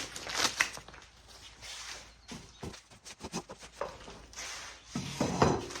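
Plastic protective sleeves rustling and crinkling as they are pulled off the bottoms of patio chair legs, with scattered short clicks and scrapes.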